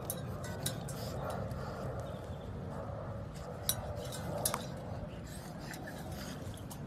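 A stainless steel dog water bowl clinking and clanking as a puppy paws at it and tips it over on the grass: a few sharp metal clinks, the two loudest a little under a second apart near the middle, the second ringing briefly.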